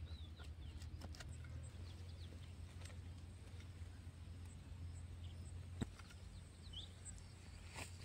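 Quiet rural outdoor ambience: faint short bird chirps over a steady low hum, with scattered light clicks and one sharper click about six seconds in.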